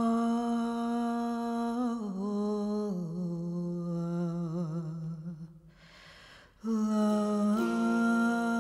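A solo woman's voice humming long, wordless held notes, unaccompanied. The pitch steps down twice with small wavering ornaments, breaks off for about a second's breath, then comes back on a new held note that rises near the end.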